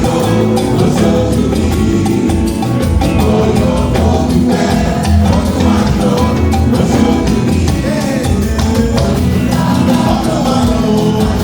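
Church choir singing an anthem over a band, with a steady beat of drums and percussion and a strong bass line.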